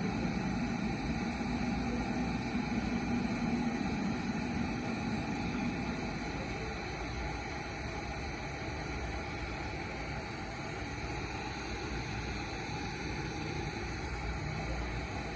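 Steady rushing-air noise with a low hum, as from a hot air rework station blowing on an iPhone logic board to lift the A8 processor. The hum fades out about six seconds in, leaving the even hiss.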